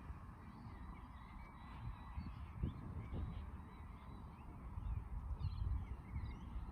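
Birds chirping with many short, quick calls, over a steady low rumble.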